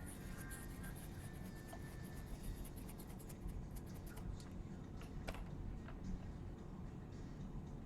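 Faint scratching and a few light ticks of a small hand tool working on a tablet's circuit board during micro-soldering, over a steady low hum.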